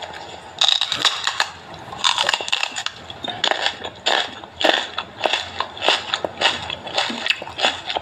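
Crunchy food being bitten and chewed, crisp crunches coming irregularly about twice a second.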